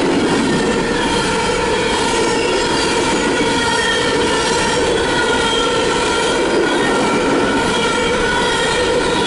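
Empty coal hopper cars of a CSX freight train rolling steadily past, steel wheels on rail, with faint wavering squeal tones from the wheels.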